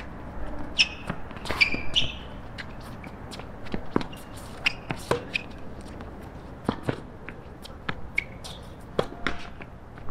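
Tennis rally on a hard court: sharp racket strikes on the ball and ball bounces, a few every second or so, with footsteps between them.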